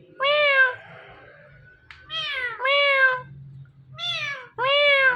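Indian ringneck parrot imitating a cat's meow, five meows in a row, each rising then falling in pitch, with a pair in quick succession in the middle and another near the end.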